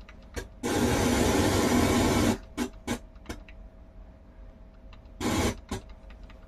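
Marantz SR1040 tuner-amplifier putting out FM static through its speakers as the tuning is stepped up between stations. The hiss comes in bursts: one about a second and a half long near the start, one about half a second long around the middle, and several short ones, with quieter gaps between.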